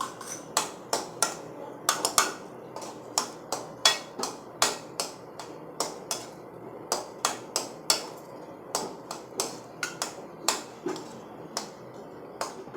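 A cooking spoon knocking and scraping against a heavy-bottomed pan as boiled egg yolks are mashed into a thick masala gravy, with sharp knocks coming irregularly about two or three times a second.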